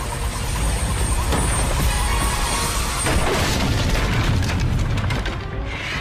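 Cartoon magic-whirlwind sound effect: a loud rushing wind with a heavy low rumble, under dramatic background music.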